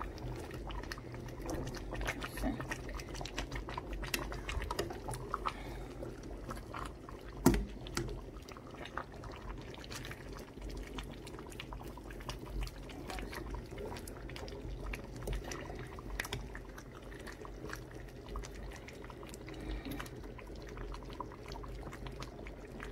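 Pot of egusi soup simmering, the thick stew bubbling with many small pops and clicks, and one louder knock about seven and a half seconds in.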